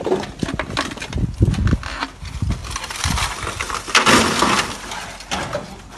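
Burnt debris being shifted by hand: scorched corrugated metal sheets and charred wood crunching and clattering, with repeated knocks. The loudest crash comes about four seconds in.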